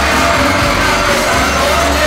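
Loud dance music with a heavy bass line, playing for the couples' routine.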